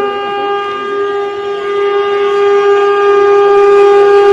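Horn of an approaching Indian Railways train sounding one long, steady blast that grows louder as the train nears the platform.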